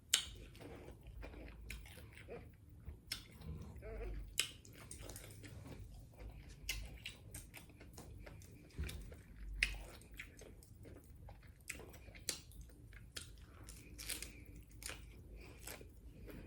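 A person chewing and biting into tacos, with irregular sharp clicks of the mouth and food.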